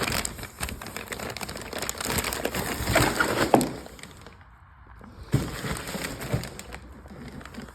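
Rustling and clattering as new stainless steel exhaust headers are handled in their plastic bag, with many sharp clicks. The sound comes in two bouts, with a short pause about four seconds in.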